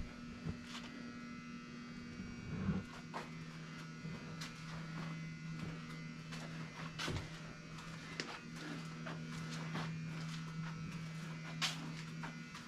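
A steady low buzzing hum from a small motor or machine, with scattered faint clicks and knocks over it.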